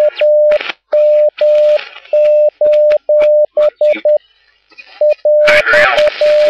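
Morse code from an amateur radio station: a single steady beep keyed in long dashes and short dots, with a pause of about a second in the middle. Faint voices sit underneath, and a louder rush of noise rises near the end.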